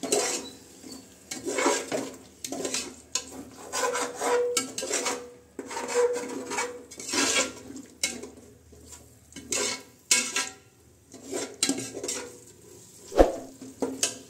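A metal ladle stirring and scraping thick masala around the inside of an aluminium pot, in repeated strokes about once a second, with a sharp clank of the ladle against the pot near the end.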